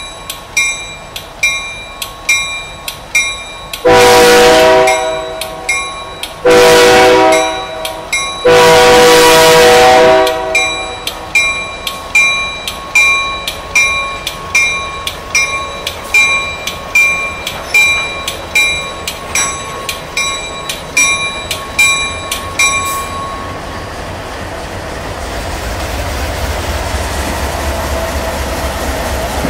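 Diesel locomotive's multi-chime air horn sounding three blasts for a grade crossing, the last the longest, over a bell ringing about twice a second. The bell stops a little over 20 seconds in, and the locomotive's diesel engine rumbles past.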